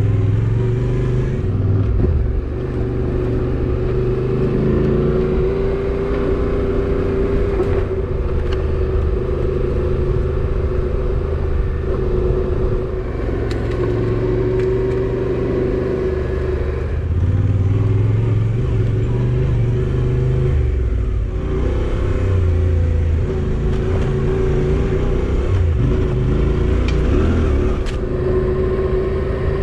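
Motorcycle engine running as the bike is ridden along a rough, overgrown bush track, its pitch rising and falling with the throttle, with a few sharp clicks along the way.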